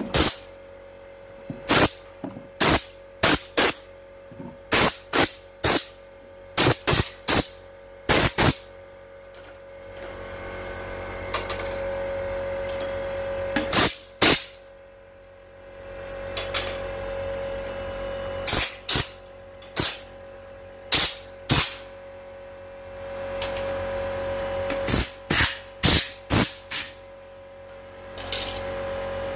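Short, sharp spray blasts, about two dozen in irregular runs, cleaning dust out of the parts of a CNY E900 embroidery machine, over a steady hum.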